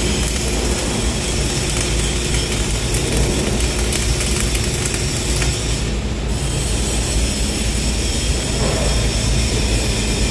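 Flux-cored arc welding on thin steel: the wire-fed arc crackles steadily, then stops about six seconds in. Steady factory noise carries on after the arc stops.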